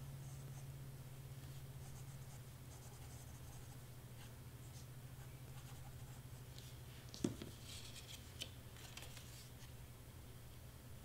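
Faint rustling and rubbing of cardstock layers being handled, with a sharp tap about seven seconds in and a lighter one a second later, over a steady low hum.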